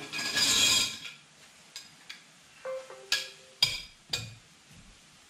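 A clatter of metal tools lasting about a second. Then a short squeak and three sharp metal clicks about half a second apart as a large adjustable wrench is worked on the threaded grease cap of a boat trailer's wheel hub.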